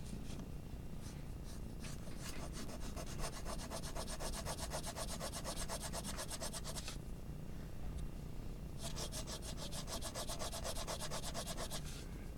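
Graphite pencil shading on drawing paper: rapid back-and-forth strokes in two spells of a few seconds each with a short pause between, darkening the tone.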